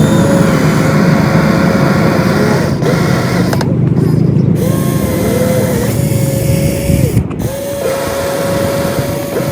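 Small electric motors of a radio-controlled excavator whining, starting and stopping several times with a brief rise and fall in pitch each time, over a low rumbling noise.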